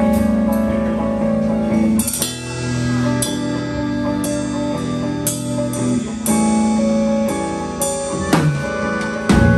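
Live rock band playing an instrumental passage: electric guitars holding sustained chords over a drum kit, with sharp drum and cymbal accents about once a second. No singing.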